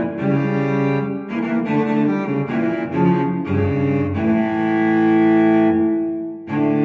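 Background instrumental music: a run of changing notes, then a long held chord from about four seconds in, breaking off briefly near the end before the next chord.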